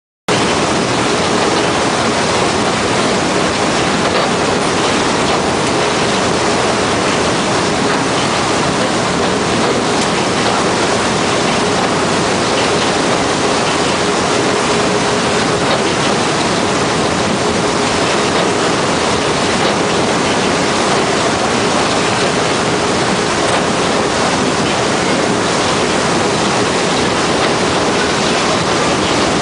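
Potato brush washer running: a steady rushing of water and potatoes tumbling over the rotating brush rollers, with a faint steady hum.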